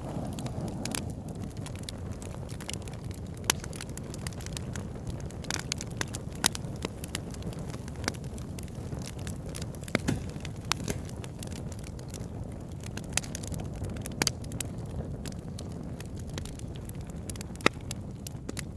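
Wood campfire burning logs: irregular sharp crackles and pops, about one every second or two, over a low steady rumble.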